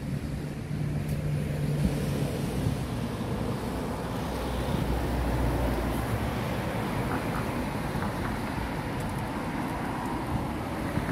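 Road traffic: cars passing on a street, a steady rush of engines and tyres.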